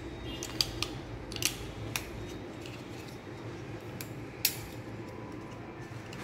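Sharp clicks and taps of the small plastic parts of a Samsung TV remote being handled during repair, about five in all, the strongest about half a second and four and a half seconds in, over a steady low hum.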